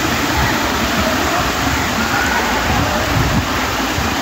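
Water pouring down the curved concrete face of a reservoir dam's spillway and splashing into the channel at its foot: a steady, loud rush of falling water.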